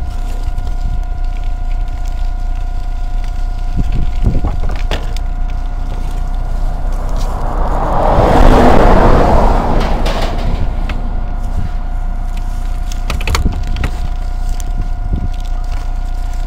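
Electric-assist bike rattling and bumping along a rough footpath: a steady rumble with scattered knocks, and a rushing swell that rises and fades about eight to ten seconds in.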